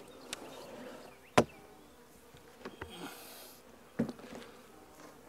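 Honey bees buzzing around a plastic nuc box as it is handled, with a few sharp knocks of the box, the loudest about a second and a half in.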